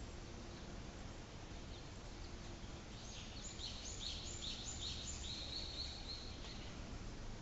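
A bird singing a run of short, high, repeated notes, about three a second, from about three seconds in to near the end, over steady low outdoor background noise.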